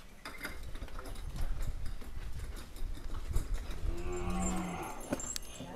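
A cow moos once about four seconds in, a single call of about a second, over a low rumble and a few light knocks.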